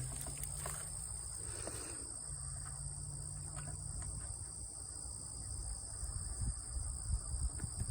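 Steady chorus of insects buzzing in two high-pitched layers, with a faint low rumble underneath.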